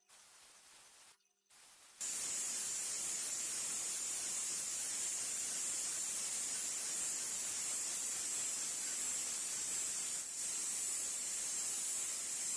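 Bench sander grinding a steel ratchet bar, heard as a steady, even hiss that starts abruptly about two seconds in, after a faint start. The work is taking pitting off the bar and bringing it toward a shine.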